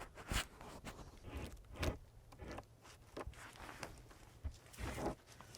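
Irregular footsteps and short knocks on the forest floor, a second or more apart, as a heavy pine log is being handled.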